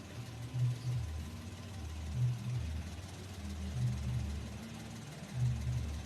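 Car engine idling, a low rumble that swells in a slow, even pulse about every second and a half.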